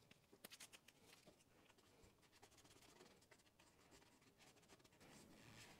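Near silence, with faint scratchy rubbing and small ticks from an alcohol swab wiping the inside of a plastic motorcycle handguard.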